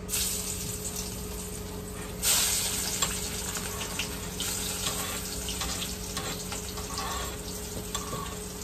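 Chopped onions hitting hot cooking oil in a pan and sizzling, starting suddenly, with a louder surge of sizzle about two seconds in. The frying then carries on steadily with small crackles.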